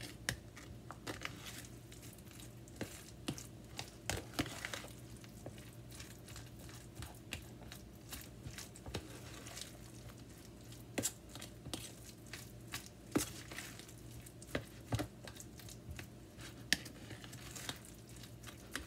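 A spoon stirring thick mashed avocado in a plastic food container: soft squishing with irregular scrapes and taps of the spoon against the container. A few sharper clicks stand out in the second half.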